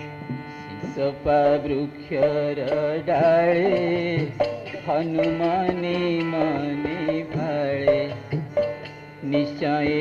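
Traditional Odia devotional-style singing with percussion and instrumental accompaniment, the music of a Ravana Chhaya shadow puppet play; the voice glides between held notes, with light percussive strikes throughout.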